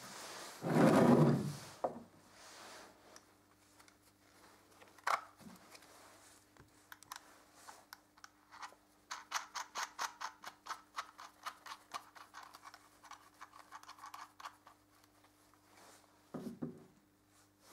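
Handling noise from a bundle of drilled Nokia phones held together with a bolt and cable ties, worked with gloved hands on a bench. There is a clattering knock about a second in and a single click a few seconds later, then a run of quick, light clicks for several seconds in the middle.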